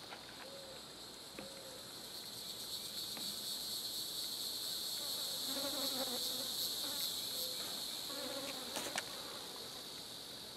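A steady, high insect buzzing, swelling louder through the middle and easing off again, with a few faint short low notes and clicks under it.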